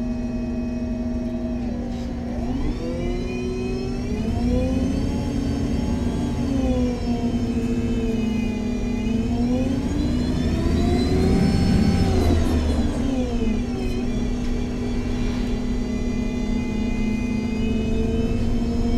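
MAN Lion's City G NG313 CNG articulated bus with a Voith automatic gearbox, heard from on board as it drives: its drivetrain whine rises, dips, climbs again to a peak about eleven seconds in, then falls away, over a steady hum.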